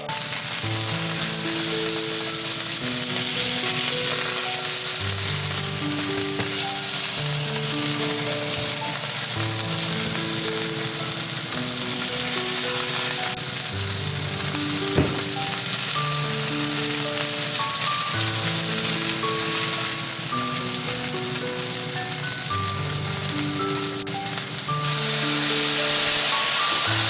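Hamburg steak patty sizzling in oil in a black frying pan, with background music playing a gentle stepped melody. About 25 seconds in the sizzle jumps louder and hissier as a spoonful of sake hits the hot pan and steams.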